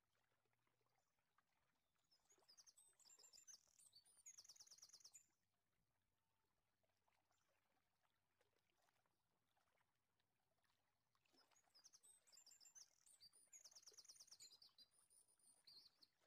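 Very faint high-pitched bird chirps and rapid trills come in two spells of a few seconds each, over near silence.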